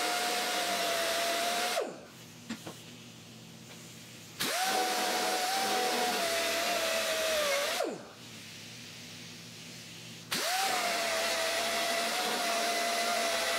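Flat shrinking disc on an electric angle grinder run against the steel door skin in three runs: a steady whine with a rubbing hiss, stopping about two seconds in and again about eight seconds in, and starting up again about four and a half and ten seconds in. The spinning disc heats and shrinks the high spots of the panel to bring them down.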